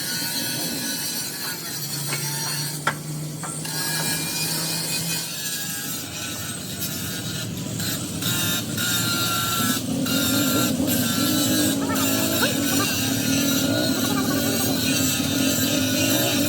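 A vehicle engine running, with scattered clicks and knocks and voices in the background.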